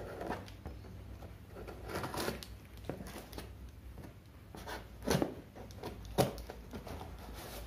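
Scissors cutting through clear packing tape and corrugated cardboard, with irregular scratching and rustling and a few sharp clicks. The loudest click comes about six seconds in.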